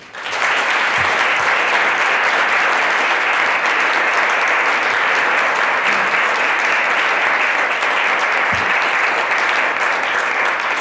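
An audience applauding steadily, welcoming the guest speaker to the lectern.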